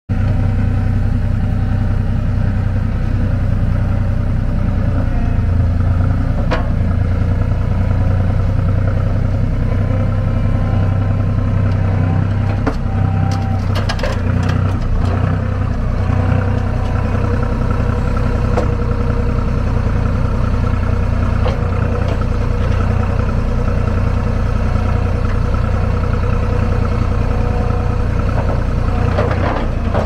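Skid steer loader's engine running steadily as the machine is driven onto a trailer, with a few knocks about halfway through.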